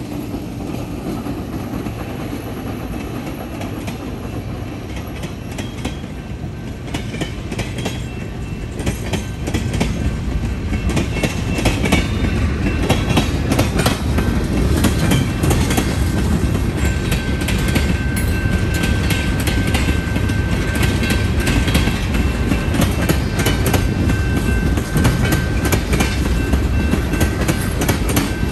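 Freight train rolling past: the two trailing SW1500 switcher locomotives go by, then tank cars clatter steadily over the rail joints, getting louder about ten seconds in. A faint steady high ringing tone runs under the clatter from about twelve seconds in.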